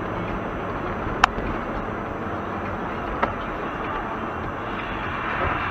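Road noise heard inside a moving car's cabin: a steady tyre and engine rumble on a winter road, with a sharp click about a second in and a fainter one about three seconds in.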